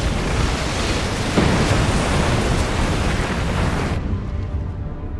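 Film sound effect of a flood torrent: a loud, dense rush of water over a deep rumble. It surges about a second and a half in and thins about four seconds in to a lower rumble.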